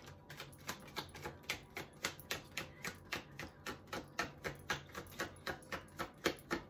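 A deck of tarot cards being hand-shuffled: a regular run of short card slaps and taps, about three a second.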